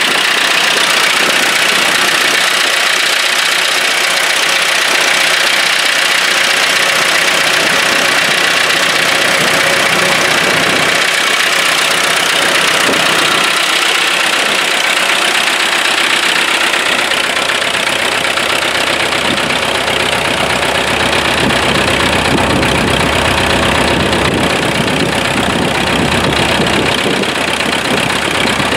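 1955 International TD6 crawler's four-cylinder engine idling steadily.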